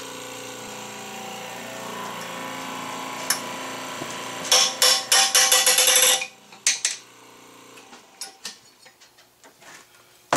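Shop press pump running with a steady hum while it pushes the sheet-metal pulley hub off a Chevy six water pump shaft. A bit over four seconds in comes a quick run of sharp cracks as the hub breaks loose and is driven off. Then the hum stops and only a few light metal clicks follow.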